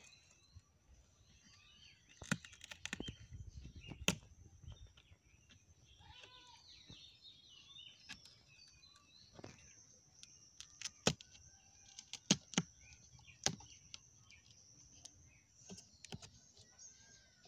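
Small birds chirping over a thin steady high hiss, with scattered sharp clicks and taps from hands working wire around a banana-tree stem trap and cutting into it with a knife.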